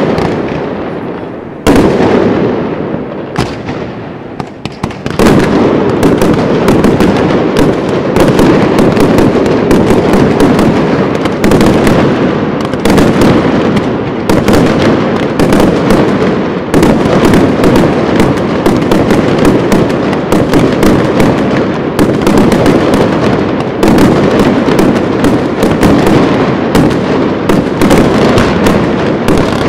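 Fireworks display fired by Pirotecnia Valenciana: a few separate loud bangs in the first five seconds, then an unbroken, dense barrage of explosions.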